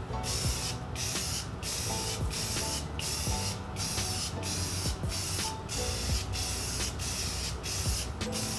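Aerosol spray paint can hissing in short, quick bursts, about two a second, as a tan camo base coat is sprayed back and forth onto a rifle magazine.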